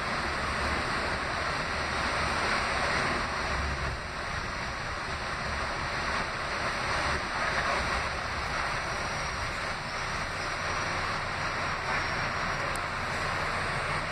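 Steady rumble and hiss inside an R68A subway car, with no sharp events.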